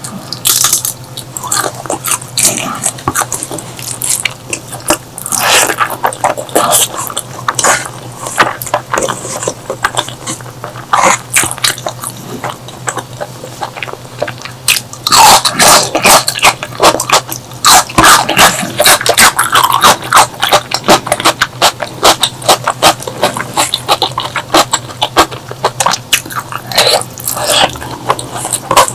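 Close-miked eating: a mouth chewing and smacking in quick, irregular wet clicks, with a denser, louder run of bites about fifteen to twenty seconds in.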